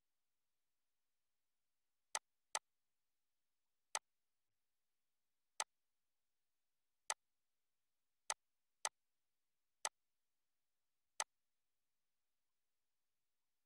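Computer mouse clicking: nine short single clicks at irregular intervals, the first two close together, with near silence between them.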